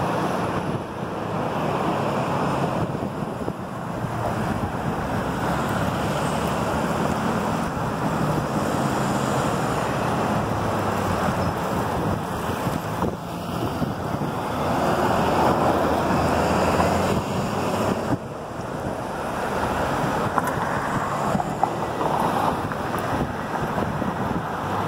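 Kankakee River in flood: fast brown floodwater rushing and churning white against a concrete floodwall, a steady loud rush of water. Wind buffets the microphone.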